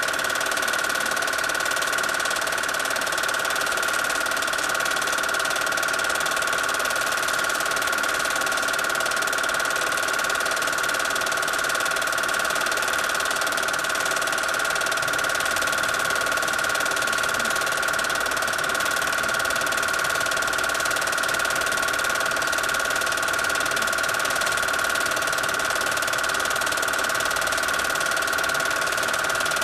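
Film projector running: a steady mechanical whirring clatter with a constant high whine.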